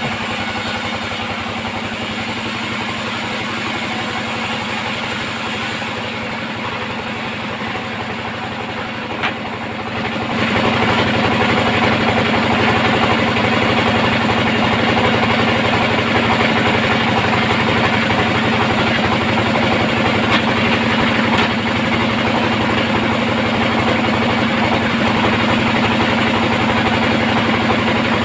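Band sawmill running while sawing mahogany: a steady mechanical drone that grows louder and fuller about ten seconds in, with a short click just before.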